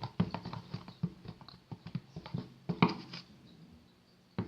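Fluffy shaving-foam slime being stirred with a mixing tool in a container while the activator is worked in: a run of irregular clicks, taps and sticky smacks, with the loudest near three seconds in.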